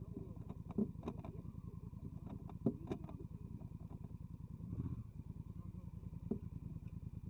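Motorcycle engine idling with a rapid, even pulse, cut off suddenly near the end, with a few sharp clicks and knocks over it.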